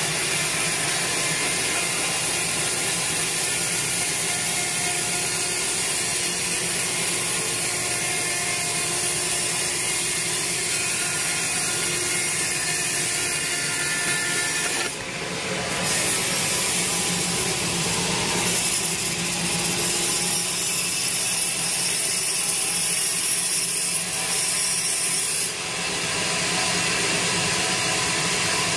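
Sawmill band saw running through a large teak log, ripping it lengthwise into boards, with a steady dense sawing noise. The sound dips and changes briefly about halfway through and again near the end.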